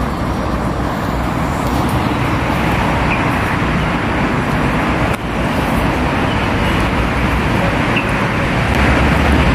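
Steady hum of road traffic, with no single vehicle standing out; the noise dips briefly about five seconds in.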